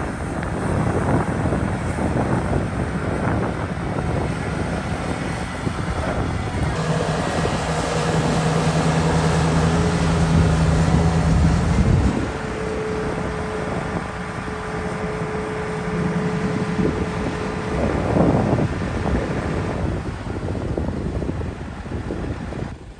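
Volvo excavator working, its diesel engine running steadily with scattered clanks. The engine note grows stronger under load for several seconds about a third of the way in, and a thin steady whine carries through the middle.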